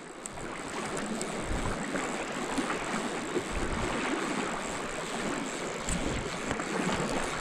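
Steady rush of flowing creek water, with a few brief low rumbles.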